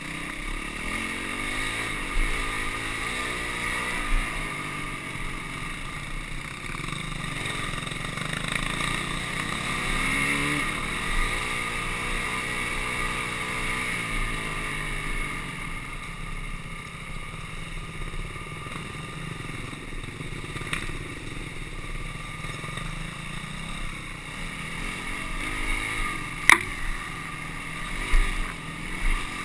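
Honda CRF250X dirt bike's four-stroke single-cylinder engine running under a riding load, revving up and down as the bike is ridden off-road. A few sharp knocks stand out, the loudest about 26 seconds in.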